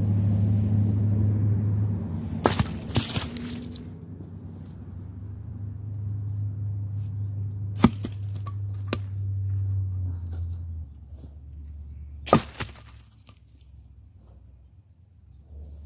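A low engine hum that fades out, and over it a few sharp wooden knocks and cracks spaced several seconds apart, the sound of pieces of firewood being thrown down or knocked together.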